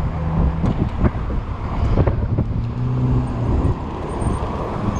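Car traffic passing close by on a street, with a vehicle's low engine hum that fades out about three and a half seconds in. Gusty wind rumbles on the microphone throughout.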